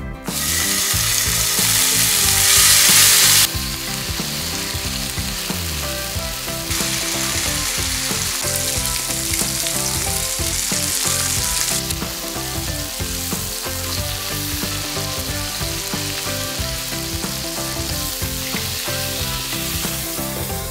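Chicken thighs sizzling in hot oil in a cast iron skillet: a loud burst of frying as the pieces go into the pan in the first few seconds, then a steady sizzle.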